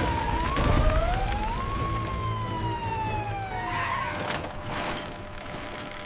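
A fire truck's siren wailing, rising and then slowly falling in pitch, over a low rumble of crashing concrete rubble that fades away, with a few knocks about four seconds in.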